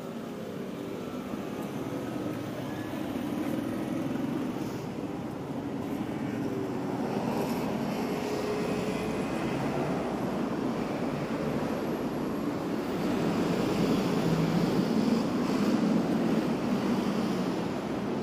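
Road traffic on a busy city street: cars and a city bus driving past, with engine hum and tyre noise, growing louder toward the end.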